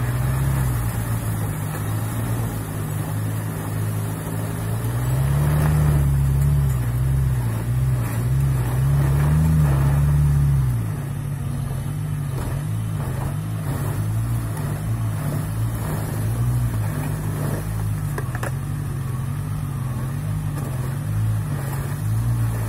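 Off-road SUV engine running under load, with the revs climbing about five seconds in and easing back about eleven seconds in. Scattered knocks are heard along with it.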